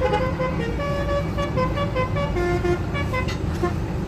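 Bus 'telolet' multi-tone musical horn of the Basuri type playing a quick melody of short notes that step up and down, over the low rumble of the bus's running engine.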